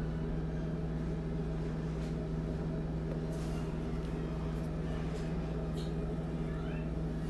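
A steady low machine hum with a few faint soft clicks.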